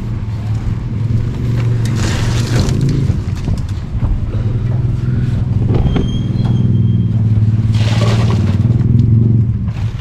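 Concrete mixer's engine running steadily with a low hum. Two spells of harsh scraping noise come over it, about two seconds in and again near the end.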